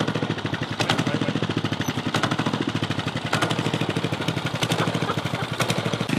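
Riding lawn mower engine idling with a steady, even pulse.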